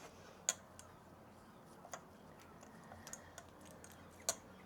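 A few faint, sparse clicks and taps of small metal engine parts being handled on a bench, with two sharper clicks about half a second in and near the end.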